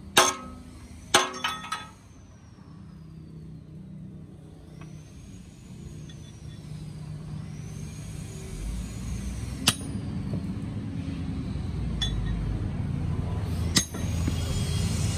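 Hammer striking the steel bracket on a truck chassis rail: a loud metallic clank at the start and three more about a second later, then a few single clinks spaced seconds apart. Under them, a low engine rumble grows steadily louder from about halfway through.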